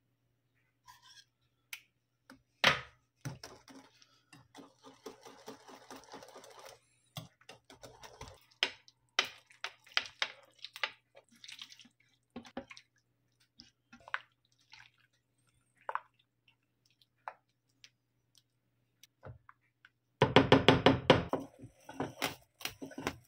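Close-up kitchen preparation sounds with no talk. A wire whisk beats a cream mixture in a bowl with quick, regular strokes early on. Scattered clicks and taps of a knife on coffee jelly cubes follow, then a loud, dense run of rapid clatter and liquid sounds near the end as the jelly meets the creamy mixture.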